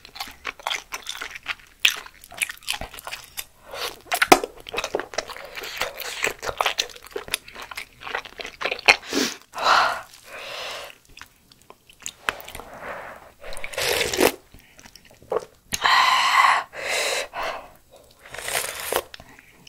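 Close-up mouth sounds of a person eating malatang: chewing with many short wet clicks and crunches. Later come longer bursts of slurping broth from a spoon, the loudest near the end.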